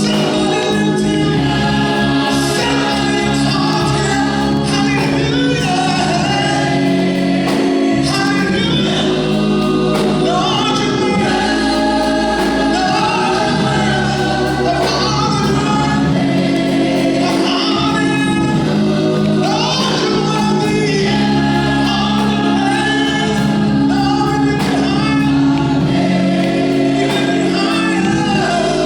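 Gospel choir singing with steady instrumental accompaniment underneath.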